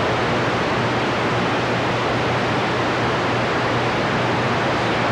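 Steady static hiss from a CB radio's speaker on receive, with no station coming through, and a low hum under it.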